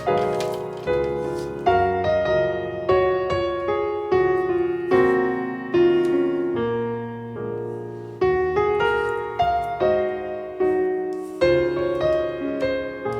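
Background piano music: a slow melody of single struck notes and chords, each note dying away.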